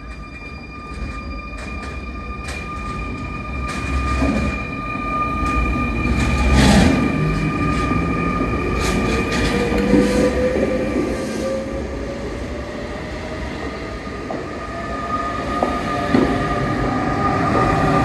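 SNCF TER regional train running past close by along a station platform: the rumble of wheels on rail grows louder as it comes alongside, with clicks over the rail joints and a steady high-pitched squeal. In the second half a whine rises slowly in pitch.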